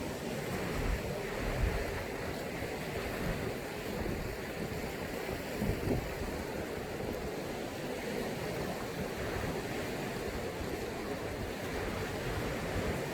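Sea waves washing in as a steady rush of surf, with brief louder low surges about two and six seconds in.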